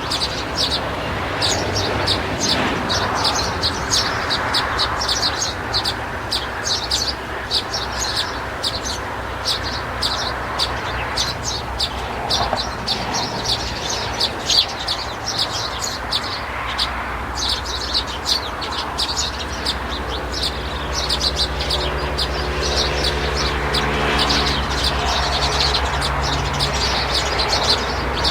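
A crowd of birds chirping rapidly and without pause in short, high notes. About halfway through, a steady low motor-like hum comes in underneath.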